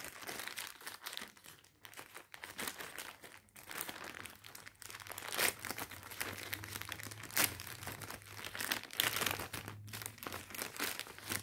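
Plastic courier mailer crinkling and crackling irregularly as hands pull and tear it open.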